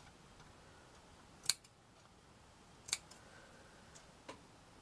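Scissors snipping through the thread of a crochet doily: three separate snips about a second and a half apart, the last one fainter.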